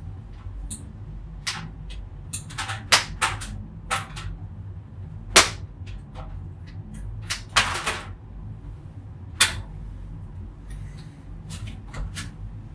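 Scissors snapping shut again and again on an auxiliary audio cable, a run of sharp clicks at uneven intervals. The loudest snaps come about three, five and a half, seven and a half and nine and a half seconds in.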